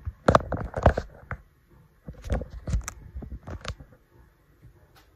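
Handling noise from the recording camera or phone being grabbed and moved: an uneven string of knocks, taps and scrapes on the microphone, loudest in the first second.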